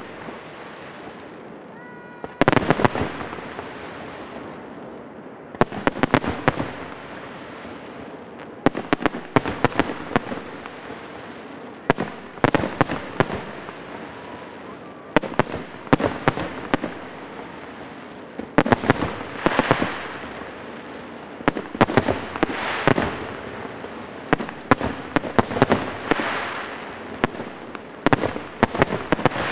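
Fireworks display: aerial shells bursting in volleys, a cluster of sharp bangs about every three seconds, each followed by crackling and echo that dies away before the next.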